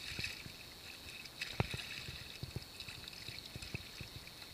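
Hooked red drum splashing at the surface beside a kayak, with bursts of water splashing at the start and again about a second and a half in, and a few dull knocks, the loudest about a second and a half in.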